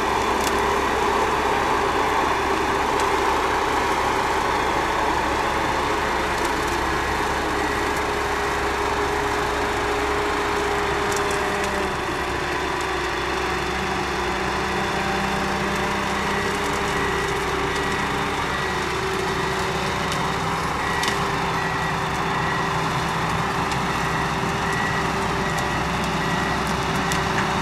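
Ponsse Buffalo Alpine forwarder's diesel engine running steadily under load as the machine, loaded with logs and fitted with bogie tracks, drives along a steep slope. A few sharp clicks come along the way.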